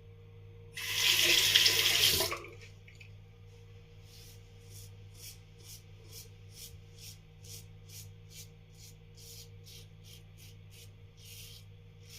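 A water tap runs briefly for about a second and a half near the start, then a Parker 65R safety razor scrapes across lathered stubble in short, steady strokes, about two to three a second.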